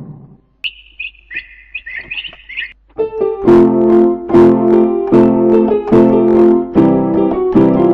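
A few short, high chirps, then from about three seconds in, piano music with chords struck in a steady repeating rhythm.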